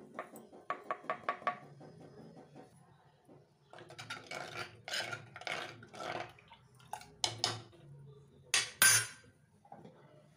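Steel plate clinking against a clay pot in a quick run of about six clinks as ground spice powder is tipped in. Then a metal spoon stirs the liquid in the clay pot in several swishing strokes, with a few sharp knocks against the pot, the loudest near the end.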